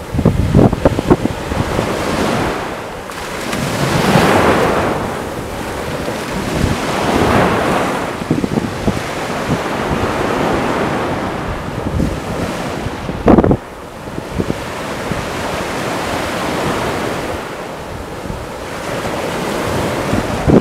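Small Black Sea waves breaking and washing up onto a sandy beach, the surf swelling and ebbing every few seconds. Wind buffets the microphone throughout, with a sharp jolt about thirteen seconds in.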